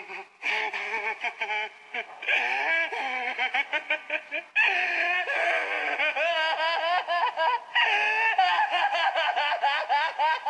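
High-pitched laughter: a voice giggling and cackling in quick rising and falling pulses, with short breaks between bursts.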